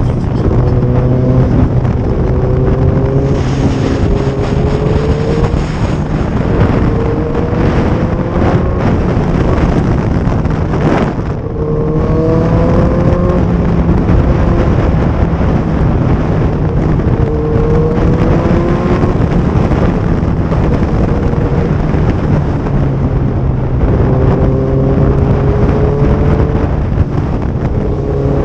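Motorcycle at highway speed: steady, loud wind rush over the microphone under a steady low engine hum, with an engine note that climbs in slow rises again and again.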